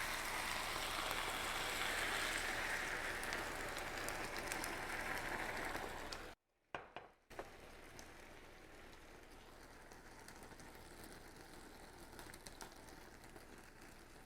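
Sukiyaki sizzling in a skillet as the warishita sauce of soy sauce, mirin, sake and sugar is poured in and stirred: a steady hiss. About six seconds in it cuts off suddenly, then goes on as a much fainter steady hiss with a few light clicks.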